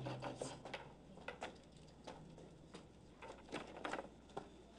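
Faint, irregular knocks and footsteps as a wooden or metal ladder is carried in and handled, about a dozen light knocks spread across the few seconds.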